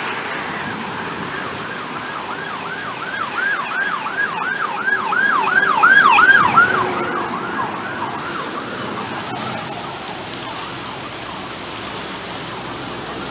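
An emergency vehicle's siren in a fast yelp, its pitch sweeping up and down about three or four times a second. It swells to a peak about six seconds in and then fades away, over a steady background hiss.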